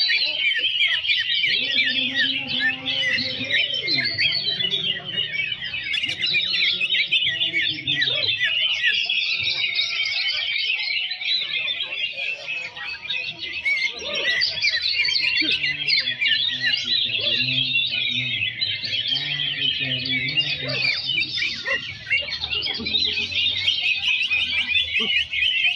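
Many caged greater green leafbirds (cucak ijo) singing at once in a dense, unbroken chorus of chirps, trills and whistled phrases, as at a songbird contest. A low murmur of people's voices runs underneath.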